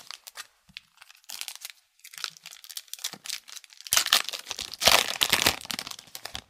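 Foil wrapper of an Upper Deck hockey card pack crinkling as it is handled and torn open. The crinkling is heaviest from about four to six seconds in.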